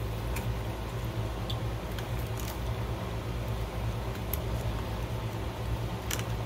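Smoked pork shoulder being pulled apart with plastic meat claws, with soft squishing and a few faint clicks, over a steady low hum.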